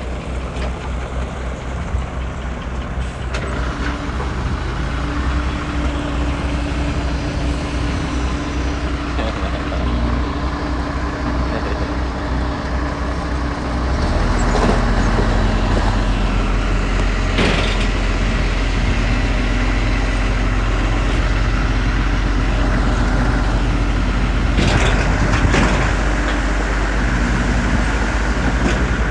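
Heavy diesel engine of earthmoving machinery running steadily, its low note rising in level about halfway through as it works harder, with a few sharp knocks later on.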